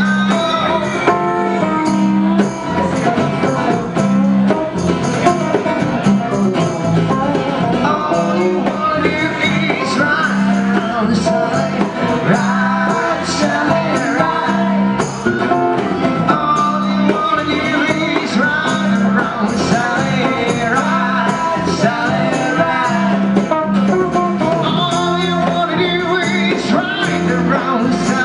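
Live band playing: strummed acoustic guitars, an electric guitar, bongos and a harmonica carrying the melody.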